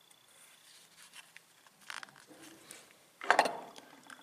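Handling noise from a small plastic action camera, the Sony HDR-AS200V, turned in the fingers with faint clicks and rustles, then a short cluster of knocks about three seconds in as it is set down on a shelf.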